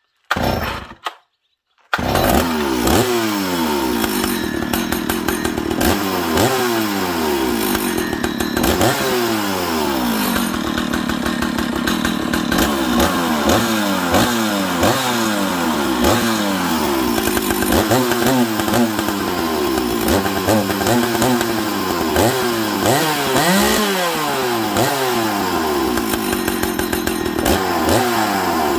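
Stihl 056 Magnum II two-stroke chainsaw giving a few short bursts, then catching about two seconds in and running, its throttle blipped so the revs climb and fall back again and again. The owner thinks he flooded it by starting on choke, and he hears a whirl in it that he puts down to a loose clutch bearing.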